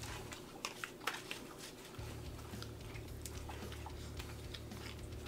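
Quiet eating sounds: chewing, with scattered light clicks and scrapes of forks and knives on foil pie tins. A low steady hum comes in about two seconds in.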